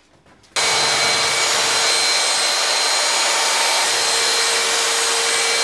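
Handheld electric paddle mixer switched on about half a second in and running at a steady speed, its whisk churning a bucket of skim-coat filler mixed with water. The motor gives a loud, even whine that holds at one pitch.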